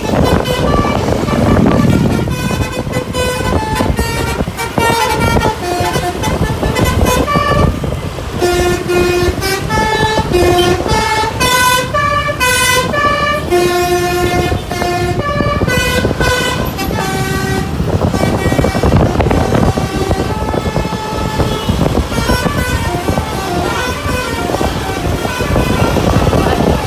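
Basuri telolet bus horn playing a melody of short pitched toots, note after note, over the bus's running engine and road noise. The tune is loudest about halfway through and fainter near the end.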